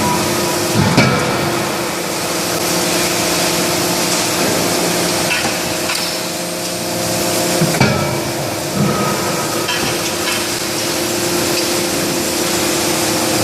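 Forge-shop machinery running with a steady hum and noise, with a few blows from the CNC hydraulic die forging hammer: one about a second in and two close together around two-thirds of the way through.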